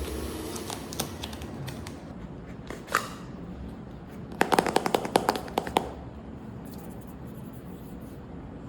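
Unboxing noises from phone packaging: a few scattered clicks, a short squeak, then about a second and a half of rapid sharp crackling.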